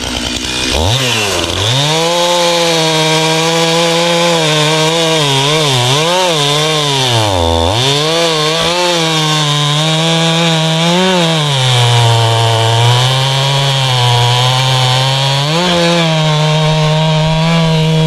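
Chainsaw cutting through a large felled pine log, the engine held at high revs throughout. Its pitch sags and recovers as the chain loads up in the wood, with one deep dip about halfway through and a lower, bogged-down stretch a little later.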